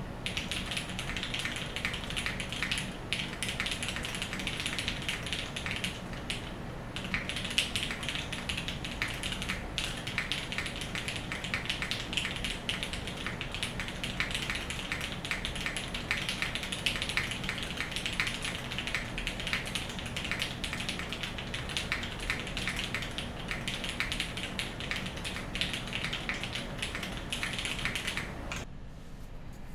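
Fast continuous typing on a custom 60% mechanical keyboard with linear Cherry MX Black switches on a polycarbonate plate, GMK keycaps and an aluminium case: a dense patter of key clacks. The typing pauses briefly about seven seconds in and stops near the end.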